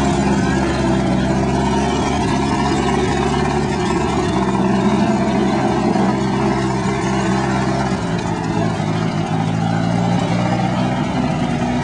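Willys Jeep engine running steadily at low speed as the Jeep drives through mud and water, easing off briefly about eight seconds in and picking up again near the end.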